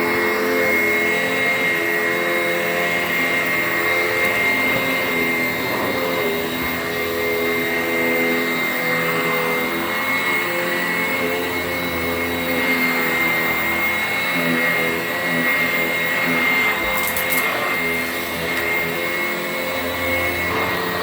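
Sanitaire commercial upright vacuum cleaner running steadily, with a high, even whine over a lower hum, while it picks up trash from a carpet.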